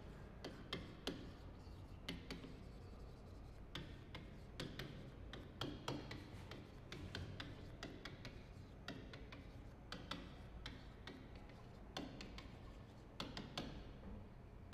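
Chalk writing on a chalkboard: a faint, irregular run of quick taps and short scratches as letters are written.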